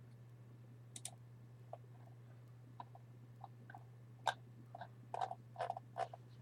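Scattered light clicks of a computer mouse and keyboard, a few at first and then more closely spaced from about four seconds in. A steady low electrical hum runs underneath.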